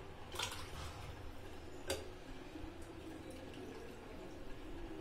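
Rinse water being poured off a bowl of washed mixed lentils into a second bowl: faint trickling and dripping, with a short splash about half a second in and a sharp click near two seconds.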